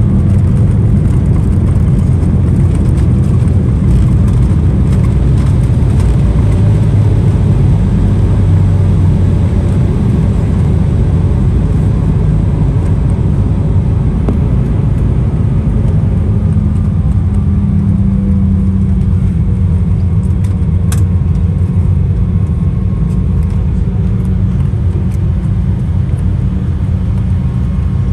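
Cabin noise of an Embraer 175 jet slowing after touchdown: a steady low rumble from its twin GE CF34 turbofans and the landing gear rolling on the runway, easing gradually as the aircraft decelerates and turns off.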